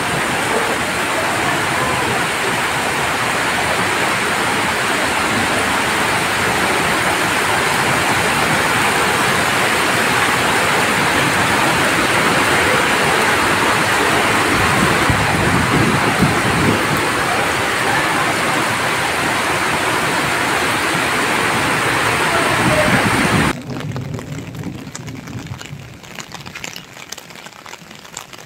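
Heavy rain pouring onto a paved, water-covered courtyard, a loud steady hiss of downpour splashing on the ground. About 23 seconds in the sound drops abruptly to a much quieter, thinner background.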